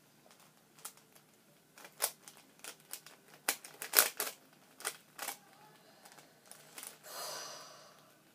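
LanLan 4x4 puzzle cube being turned by hand: irregular plastic clicks of its layers as they rotate, the loudest about four seconds in, with a short soft rustle near the end.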